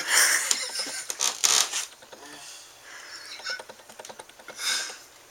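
Rustling and scuffling with scattered small clicks and scrapes, loudest in the first two seconds, then a short rustle again near the end.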